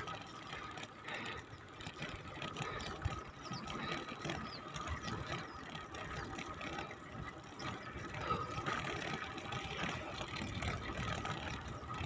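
Bicycle in motion: faint, irregular ticking and rattling from the chain and drivetrain over light road and wind noise.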